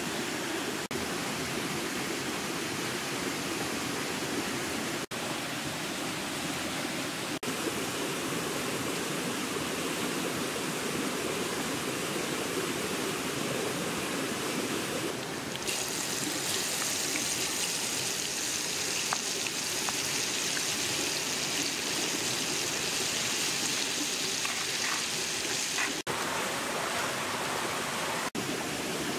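A stream rushing steadily. About halfway through, a high hiss of oil sizzling in a hot pan over a wood fire joins it for about ten seconds.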